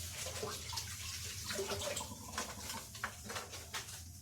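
Runny basbousa batter of milk, oil, eggs and yogurt being stirred in a bowl as semolina goes in, a wet, irregular sloshing.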